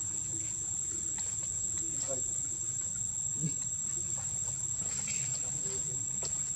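Steady, high-pitched drone of insects, unbroken throughout, with a few faint scattered ticks.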